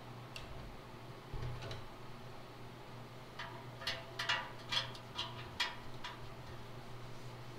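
About six light metallic clicks in quick succession, from a bent ring of thick solder wire and a stainless steel fitting being handled against the keg's stainless bottom. A steady low hum sits underneath.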